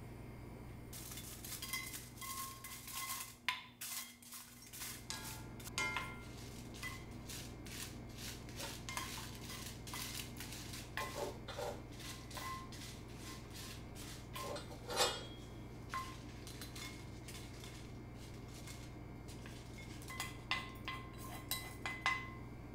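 Dried red chillies being stirred with a wooden utensil in a dry cast iron skillet: a long run of light clicks, scrapes and rattles over a steady low hum. Near the end the chillies are tipped out of the skillet onto a plate.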